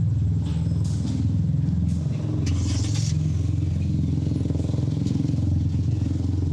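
Steady low rumble of city street traffic, vehicle engines running nearby, with a few light clicks and a brief hiss about two and a half seconds in.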